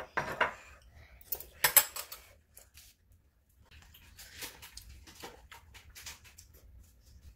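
Sounds of eating with forks from a plastic bowl and small dishes: a few short scrapes and clinks, the loudest about two seconds in, with quieter ones later.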